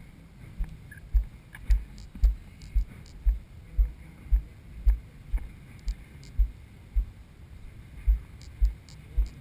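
Footsteps of a person walking, heard as dull low thuds through a body-worn camera, about two steps a second.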